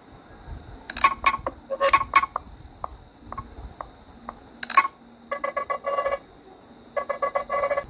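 Nothing CMF Phone 1 loudspeaker playing short electronic alert tones, one group after another, with a few faint ticks in between.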